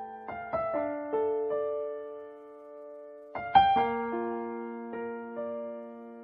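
Background solo piano music: slow, gentle notes struck one after another and left to ring, with a louder chord about three and a half seconds in.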